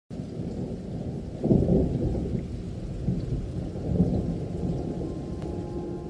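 Muffled, rolling rumble of thunder, with nothing above the low end, swelling about one and a half seconds in and again about four seconds in.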